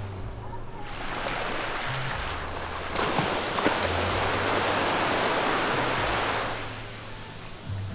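A wave breaking and washing up the beach: the surf hiss swells from about a second in, holds loudest through the middle, and dies away near the end.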